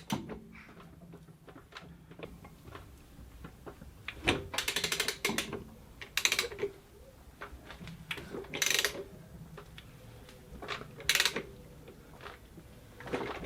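Ratchet wrench clicking in short bursts of rapid clicks, about every two seconds, while the engine of a 1996 Volvo 850 is turned over by hand to check that the newly fitted timing belt keeps the engine in time.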